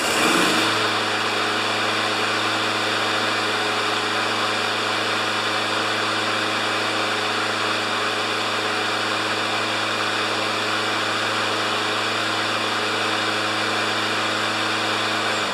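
Briggs & Stratton Quantum single-cylinder engine on a Craftsman Platinum push mower catching on the pull and running at a steady, unwavering speed, now that the excess oil has been dealt with and the carburetor sorted.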